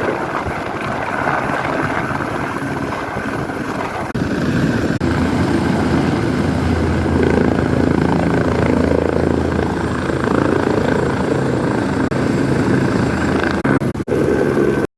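Helicopter running close by, a loud steady rotor and engine drone with a low pitched hum. It gets louder about four seconds in and briefly drops out near the end.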